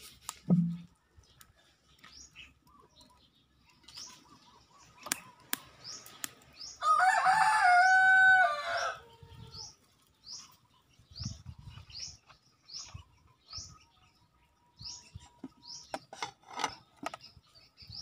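A rooster crows once, a loud call of about two seconds beginning about seven seconds in. Small birds chirp in short high notes repeating about once a second, and there is a short low thump just after the start.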